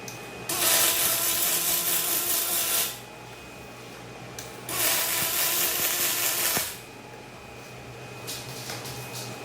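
Power drill boring holes in aluminum rack tubing: two runs of about two seconds each, starting shortly after the beginning and again near the middle, with a steady motor whine.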